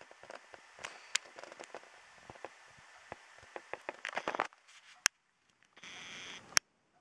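Irregular crackles and sharp clicks over a faint hiss. The sound cuts out about five seconds in, then comes back as a short burst of hiss that ends in one loud click.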